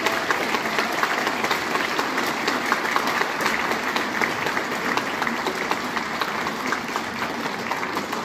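Audience applauding: a steady patter of many hands clapping, easing off slightly near the end.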